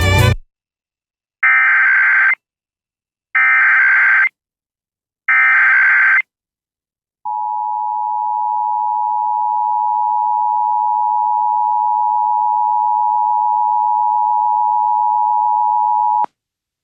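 Emergency Alert System signal announcing a Blue Alert. It opens with three short bursts of warbling SAME header data tones, each about a second long and about two seconds apart. Then a steady attention tone sounds for about nine seconds and cuts off abruptly.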